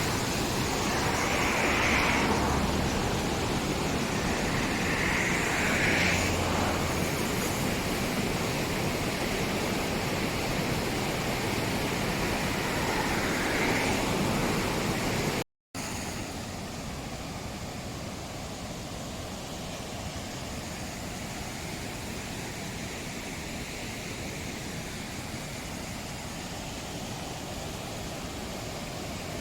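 Steady rush of a waterfall and mountain river. About halfway through it cuts out for a moment and comes back quieter.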